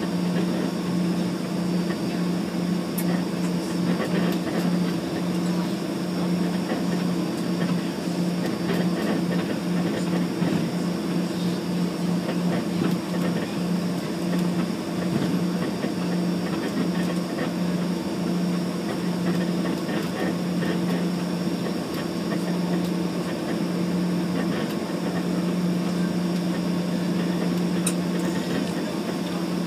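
Engines of a small regional airliner running at low power during taxi, heard inside the cabin: a steady low drone that slowly wavers, over an even rush of cabin noise.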